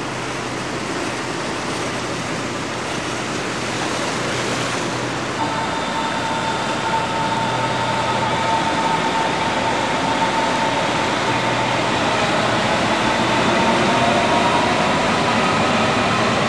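Elevated Berlin S-Bahn electric train running along a viaduct: a steady rushing rumble that grows slowly louder, with a thin motor whine setting in about five seconds in and rising a little in pitch toward the end.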